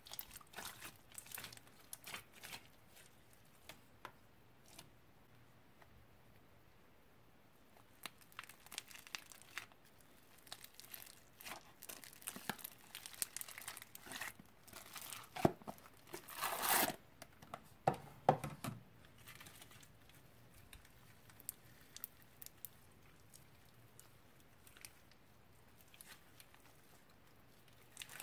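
Hands kneading, stretching and pulling old slime, making scattered sticky crackles, pops and tearing sounds. For a few seconds around the middle the crackling grows thicker and louder.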